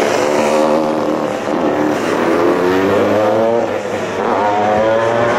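Classic racing motorcycle engine revving hard as the bike approaches, its pitch climbing, dropping back and climbing again.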